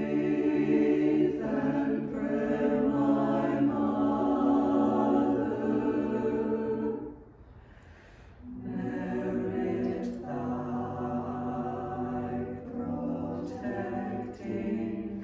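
Small mixed-voice choir singing a cappella in harmony, holding long chords. About seven seconds in the singing stops for a second and a half, then resumes more softly.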